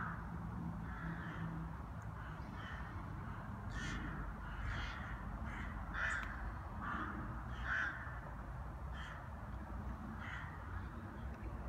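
A flock of rooks cawing, short harsh calls coming about one a second from several birds, the loudest about halfway and two-thirds through, over a low steady background rumble.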